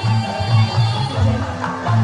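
Music with a pulsing bass line.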